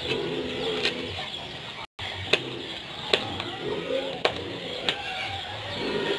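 Kitchen knife slicing green chili peppers on a plastic cutting board, about five sharp knocks of the blade on the board spread a second or so apart. A bird cooing in the background near the start, around the middle and near the end.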